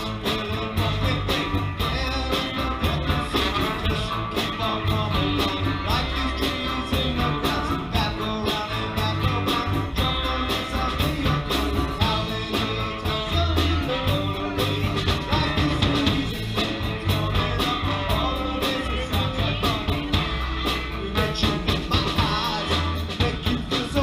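Live band playing an upbeat song: electric guitars, drums, trombone and saxophone, with singing.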